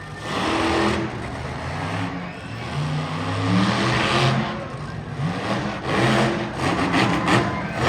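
Monster truck engine revving hard again and again, its pitch climbing and dropping with each surge of throttle as the truck pulls wheelies.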